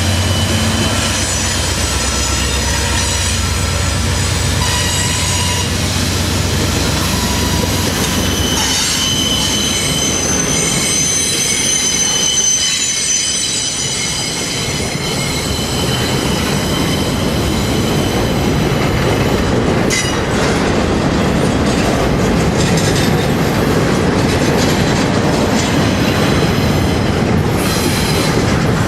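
Train rolling past: a heavy low rumble fades after about eight seconds, then railcars run by with steady wheel noise, clickety-clack and high-pitched wheel squeal.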